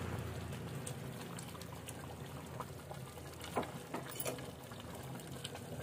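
Herbal curry simmering in a clay pot over a wood fire: a faint steady bubbling hiss, with a few soft clicks in the middle.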